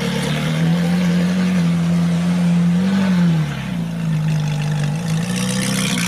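Ferrari 458 Italia's V8 engine idling steadily, with a slight rise in revs about three seconds in before it settles back to idle.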